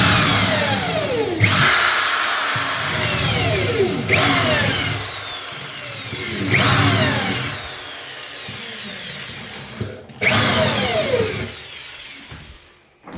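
Electric drill boring a pilot hole through a wooden floorboard into the joist for a long screw. It runs in repeated bursts every two to three seconds, each starting suddenly and then dropping in pitch, and quietens near the end.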